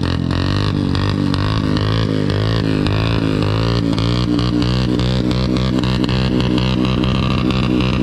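ATV engine running close by, a steady low drone whose pitch wavers slightly over and over.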